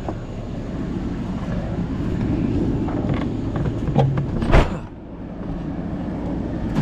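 Vehicle running down the road, its low engine and road rumble heard from inside the cab, with a few light clicks and one short, loud clatter about four and a half seconds in.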